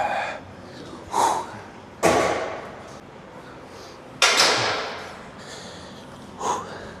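A man's heavy, forceful exhales, about five of them, as he gets his breath back after a hard dumbbell set. The two loudest come about two seconds in and just after four seconds.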